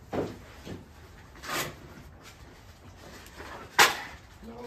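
Gunshots on the firing range: a few sharp reports at uneven intervals, the loudest near the end, each followed by a short echo.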